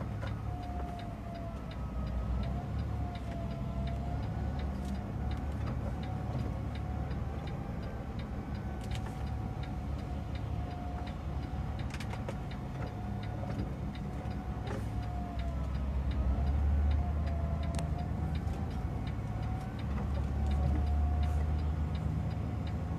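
Heavy vehicle's engine idling, a steady low rumble heard from inside the cab, swelling twice in the second half. A faint wavering whine and scattered light ticks run beneath it.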